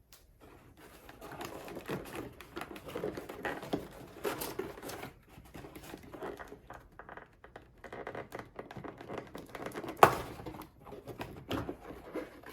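Packaging crinkling and rustling with scattered clicks as a toy lightsaber blade is taken out of its box, with one sharp, loud knock about ten seconds in.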